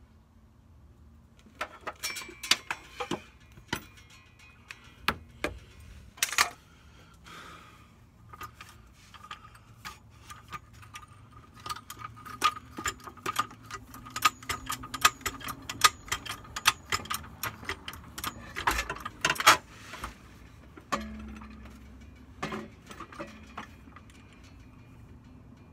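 Metal clinks, knocks and rattles as a Mustang's MT82 manual transmission is worked by hand on its jack up into the engine's bell housing. A long run of quick ticks and clinks fills the middle, with the sharpest knocks near the end of that run.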